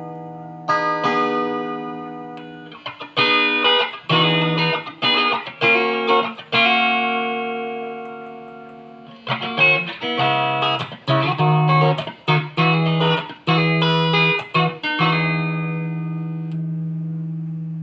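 Ibanez GIO electric guitar played through an amp: picked notes and chords, twice left to ring out and fade, once a few seconds in and again near the end.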